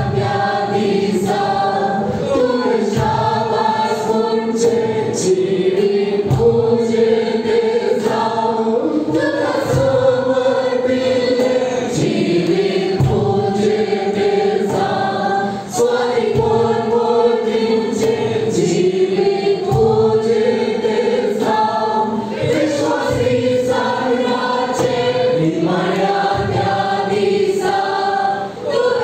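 Several voices singing a worship song together, with instrumental accompaniment and a steady beat.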